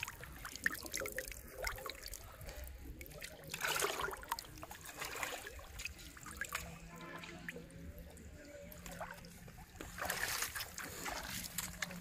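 Water splashing and trickling as a hooked fish thrashes in the shallows and is dragged onto the muddy bank, with two louder splashes about four seconds and ten seconds in.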